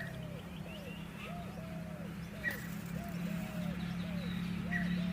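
A bird calling a steady series of short, arched cooing notes, about two a second, over a steady low hum.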